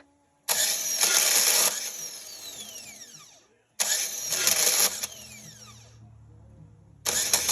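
The 2010 Chevy Malibu's starter motor whirring in three short bursts of about a second each, starting suddenly. After each burst comes a whine falling in pitch as the starter spins down. The noise is a sign of the failing starter.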